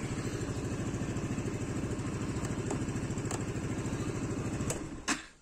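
Brand-new APEC PS5 125cc scooter's single-cylinder engine idling with a steady pulsing beat, then shut off about five seconds in, ending with a click.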